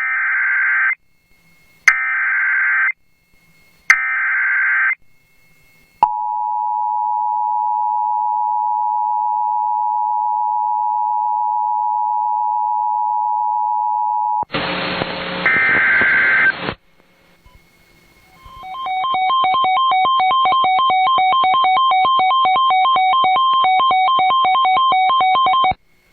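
Emergency Alert System tones on a Sangean radio: three one-second screeching data bursts of the digital alert header, then the steady two-tone attention signal for about eight seconds. A short burst of static follows, then a rapid, pulsing electronic alarm beep for about seven seconds that cuts off suddenly.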